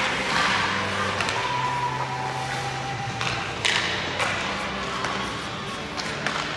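Hockey pucks cracking off sticks and off a young goalie's pads, with skate blades scraping the ice. There are sharp cracks at the start, a quick cluster about three to four seconds in, and two more near the end, over faint background music.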